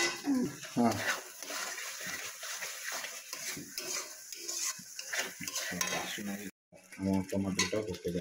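A metal spoon or ladle stirring and scraping in a cooking pan, with repeated clinks of metal on metal over a faint sizzle of frying. The sound cuts out abruptly for a moment about six and a half seconds in.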